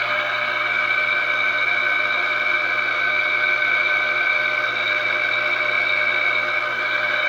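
A motor-driven machine running steadily, giving a constant high whine over a low hum. A bearing has just been packed with grease through a drilled hole.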